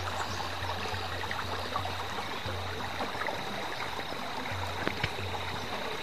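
Small shallow stream trickling steadily along a narrow grassy channel.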